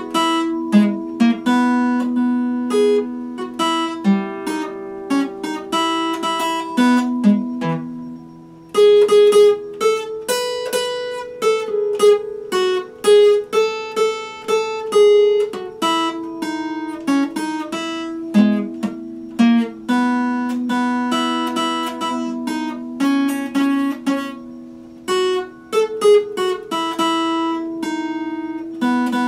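Epiphone acoustic guitar played unaccompanied: plucked chords and single notes ringing out in a continuous run, with a brief pause about a third of the way through.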